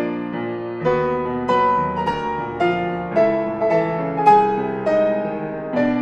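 Solo piano playing a slow, tender melody, with a new note or chord about every half second over held low bass notes.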